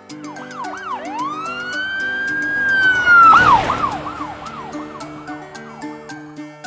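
Police car siren: a few quick yelps, then a long rising wail held high, dropping sharply with a brief rushing burst about three seconds in, then a run of fast yelps that fade out. Light background music plays underneath.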